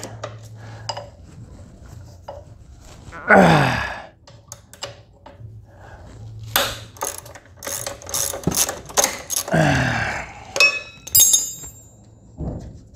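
Hand ratchet wrench clicking in bursts and metal tools clinking as the front shock bolts are worked loose on an ATV. Two loud sounds slide down in pitch, about three seconds in and again near ten seconds, and there is a short metallic ring near the end.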